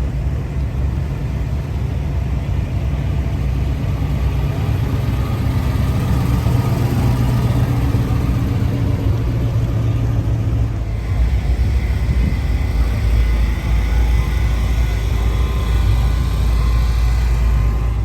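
A car driving on the road: a steady engine drone with road noise. About eleven seconds in, the engine note drops lower and the road noise grows.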